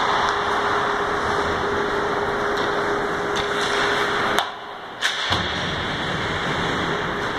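Ice hockey rink ambience: steady arena noise with a few sharp clacks of sticks and puck. The noise drops out briefly a little past the middle, bracketed by two clacks.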